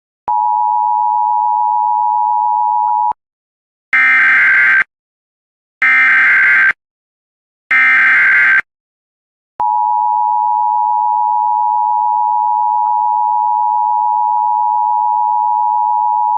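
Emergency Alert System test signal. A steady tone lasts about three seconds, then come three short buzzing data bursts, the SAME header. About nine and a half seconds in, the steady two-tone attention signal starts and runs on.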